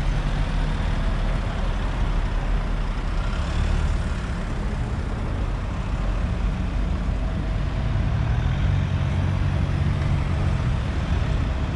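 Several vehicles driving slowly past on a city street: a steady low engine and traffic rumble.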